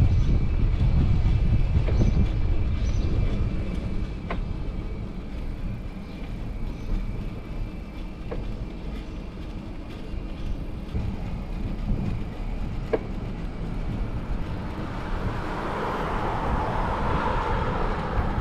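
City street noise heard from a moving bicycle, with wind rumbling on the microphone, strongest in the first few seconds before easing. There are a few sharp clicks, and a hiss of traffic builds near the end.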